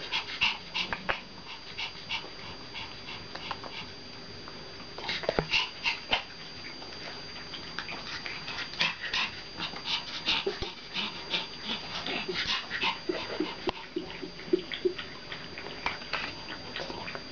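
Pomeranian dogs whining with short high-pitched yips, in quick repeated bursts, with a lull of a few seconds after the first second.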